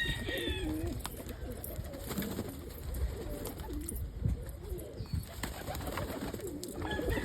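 A loft of homing pigeons and Indian fantail pigeons cooing continually, many birds overlapping, with a few scattered clicks. A thin high whistle sounds at the start and again near the end.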